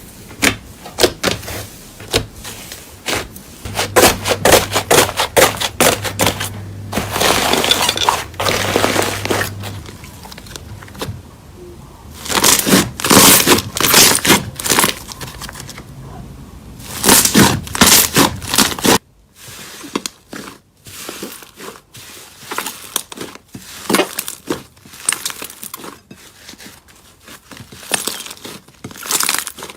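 Hands squeezing, poking and pressing slime, with dense crackling and popping clicks. Louder stretches of squishing come and go; about two-thirds of the way through the sound cuts abruptly to quieter, sparser crackles.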